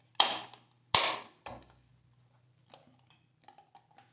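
Plastic cover plate of a combined light switch and outlet being pressed onto its frame: two sharp snaps about a second apart as it clicks into place, then a few faint clicks.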